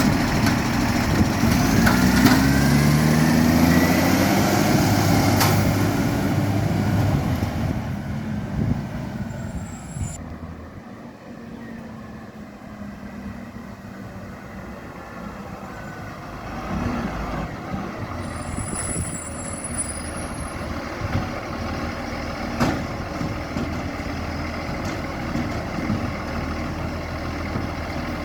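Garbage truck's diesel engine, which has an exhaust leak, revving up and then dropping away, fading for a few seconds and then building again. Two short high hisses come through, one about eight seconds in and one about nineteen seconds in.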